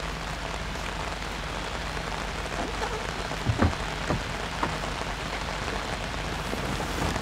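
Steady light rain pattering, with a few short knocks about halfway through.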